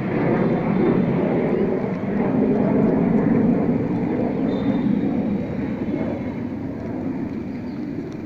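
Loud, steady low rumbling noise with no clear tone. It swells about two to four seconds in and eases off toward the end.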